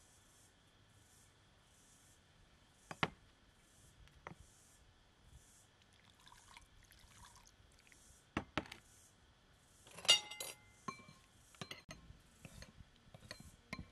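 Glassware and dishes clinking as they are handled and set down: a few separate knocks, then a cluster of ringing clinks about ten seconds in.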